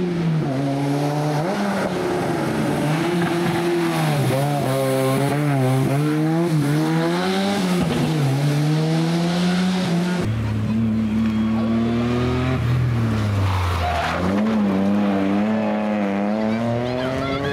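Rally car engines being revved hard, the pitch repeatedly climbing and dropping with each gear change and lift-off. About ten seconds in the sound changes abruptly to a deeper engine note.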